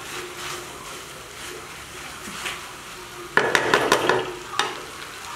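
Spaghetti with vegetables and chicken sizzling in a frying pan as a spatula stirs and tosses it, with a burst of scraping and clacking against the pan a little past halfway and one more knock shortly after.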